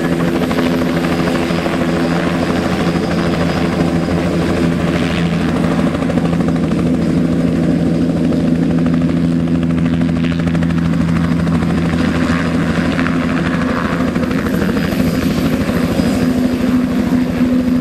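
Bell 206L LongRanger helicopter hovering low and turning in place: its single turbine engine and main rotor blades give a steady, loud running sound with an even beat, unchanged throughout. It is on a test hover after new tail rotor pitch links and other tail rotor parts were fitted.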